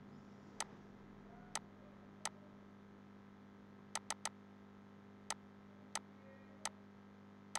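Computer mouse clicking: about ten short, sharp clicks at irregular intervals, three in quick succession about four seconds in, over a faint steady hum.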